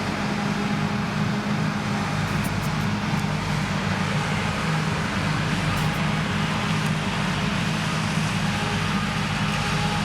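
Krone Big X 1100 self-propelled forage harvester running steadily under full load as it chops triticale: its big diesel engine and chopping drum give a constant, even hum with a strong low tone.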